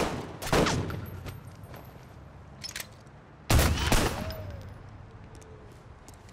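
Film gunshots from a handgun: two loud shots half a second apart at the start, a fainter one near the middle, then two more about three and a half seconds in, each trailing off in a long echo.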